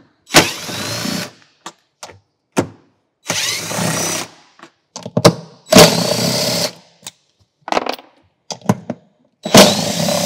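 Cordless drill spinning out four 10 mm bolts one after another: four short runs of about a second each, each opening with a click and a whine that rises in pitch as the motor spins up. Small clicks and taps fall between the runs.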